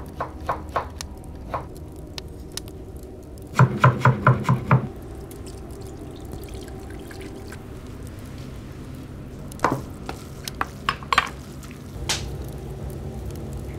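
Kitchen cooking sounds over a low steady hum: a quick run of about six knife strokes chopping on a wooden board about four seconds in, then scattered clicks and crackles near the end from a wood fire burning in a hearth.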